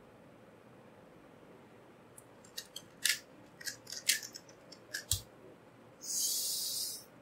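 2x2 speedcube turned fast in a timed solve: a quick run of sharp plastic clicks for about three seconds, ending in a dull thud as the timer is stopped. About a second later comes one sharp, angry exhale lasting about a second.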